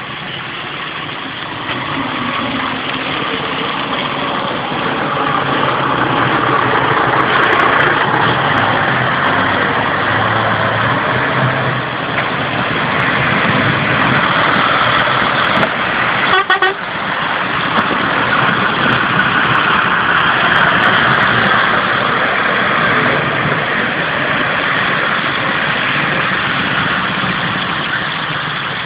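Heavy trucks passing close by on a wet, slushy road: diesel engines running and tyres hissing on the wet asphalt, swelling and easing as each vehicle goes by. A short horn toot sounds about halfway through.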